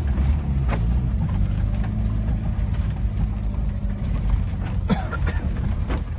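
Steady low rumble of a car's engine and road noise heard inside the cabin, with a few short knocks.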